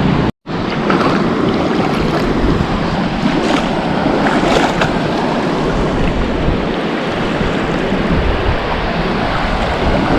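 Small lake waves washing and lapping at the shore, with wind rumbling on the microphone. The sound cuts out briefly just after the start.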